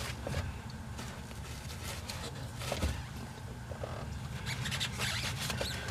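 Hand-pumped oil can clicking as it forces brake fluid up through the caliper bleeder into the aircraft's brake master cylinder (bottom-up bleeding), with scattered clicks and rubbing and a quicker run of strokes near the end. A steady low hum runs underneath.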